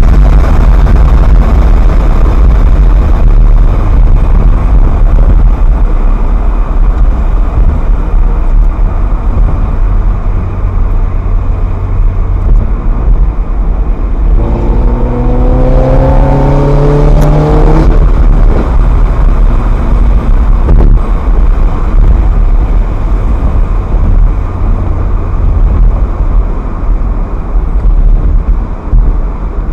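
Ferrari F430's V8 engine running under way with heavy low road and engine noise. About halfway through, the engine revs up in a short acceleration, its pitch rising for about three seconds before dropping back.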